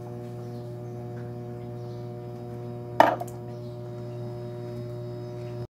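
A steady low electrical hum with a stack of even overtones, broken by one sharp knock about three seconds in; the hum cuts off suddenly at the very end.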